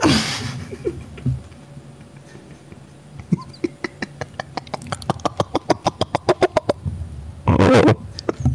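A man's voice making non-speech mouth noises close to a microphone. It starts with a quick run of croaking clicks, about seven a second, and ends with a loud rasping burst near the end.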